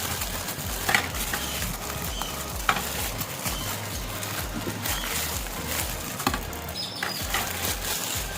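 Plastic wrapping crinkling and rustling as action-figure stands are handled, with a few sharp clicks of hard plastic.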